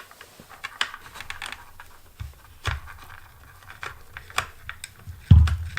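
Hand work on a plastic ATV headlight housing while a small Phillips screw is undone: many light clicks and ticks of a screwdriver and plastic parts, with a few dull thumps, the loudest about five seconds in.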